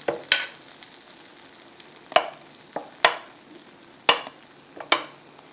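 A metal spoon clinking and scraping against a stoneware pitcher and the waffle iron as thick oat batter is scooped and spread: a series of sharp clinks at uneven intervals, over a faint steady sizzle of batter on the hot plates.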